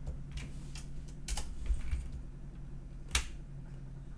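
A few separate clicks of computer keyboard keys being pressed for shortcuts, the loudest about three seconds in, over a steady low hum.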